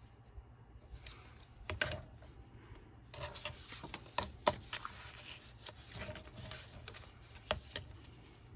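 Light taps, clicks and scratchy rubbing of paper, a ruler and a pencil being handled on a tabletop while paper is measured and marked, busier from about three seconds in.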